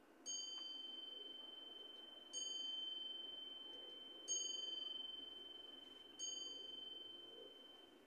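A high, bell-like chime struck four times, about two seconds apart; each strike rings on and fades slowly.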